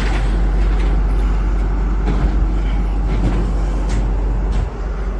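Truck engine running steadily at idle, with a brief dip in level near the end.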